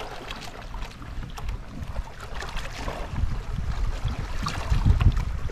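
Wind buffeting the microphone over water lapping around a small boat; the low rumble of the gusts grows louder about halfway through.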